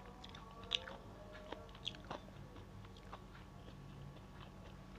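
Metal spoon and fork clinking lightly against a ceramic plate while lifting fried rice vermicelli: a handful of short, sharp clicks, spaced irregularly and mostly in the first half.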